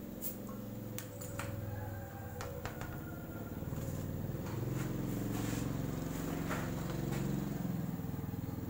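A steady low mechanical drone that grows louder through the middle, with a few light clicks and knocks as a tubeless scooter tyre is handled.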